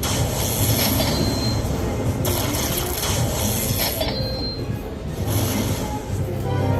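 Electronic sound effects and jingles from a Lightning Link slot machine after its Hold & Spin bonus, over the continuous din of a casino floor.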